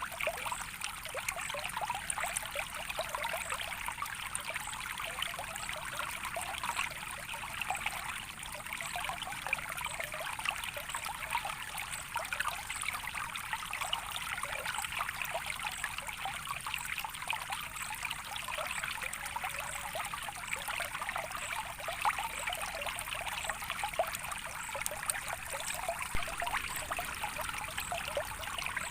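Water in a small stream trickling and babbling steadily, many small splashes running together.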